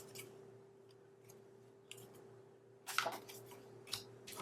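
Stiff paper pocket cards being handled and shuffled: a few soft rustles and taps, clustered about three seconds in, over a faint steady hum.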